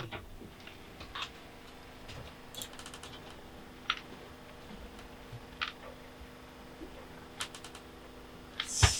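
Scattered key clicks on a laptop keyboard, a few separate taps with a short run of them about seven and a half seconds in, over a faint steady hum, with a brief louder hiss near the end.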